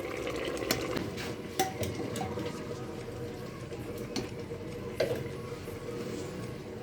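Chicken adobo broth simmering and bubbling in a pan, with a few sharp clicks of a utensil against the pan.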